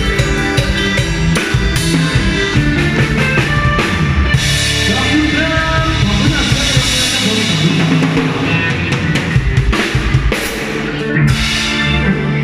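Live band music with a drum kit to the fore, an instrumental passage without singing.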